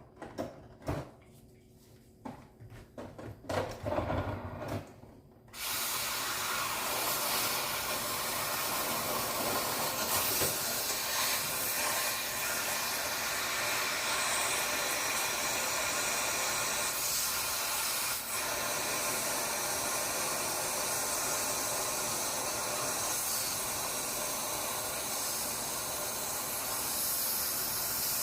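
A few faint knocks, then about five seconds in a steady, even hiss switches on and holds: a heat tool blowing into the refrigerator to melt frozen ice out of the ice maker.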